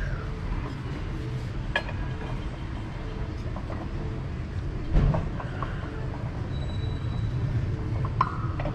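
Transmission clutch drum and metal spacers being handled and set on a hydraulic shop press: a few metal clicks and one louder knock about five seconds in, over a steady low rumble.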